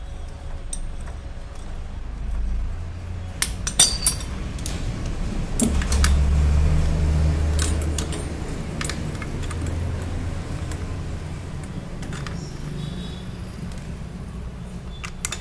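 Steel hand tools clinking and scraping as a socket bar and a clutch-holder tool are handled and fitted onto a Honda Activa's clutch bell. There is a cluster of sharp clinks about four seconds in and another near the end, over a steady low rumble.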